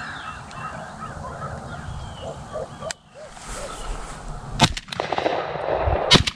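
A crow cawing several times, then two shotgun shots from a Benelli Super Black Eagle III semi-automatic about a second and a half apart in the second half.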